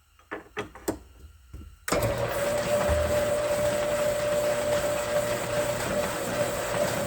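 A few light clicks, then a metal lathe starts up about two seconds in and runs steadily, with an even whine and a low hum. It is turning a brass part that is about to be chamfered.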